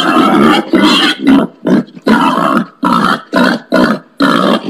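Wild pig giving a rapid series of short, loud grunting calls, about eight in a few seconds with brief gaps between them.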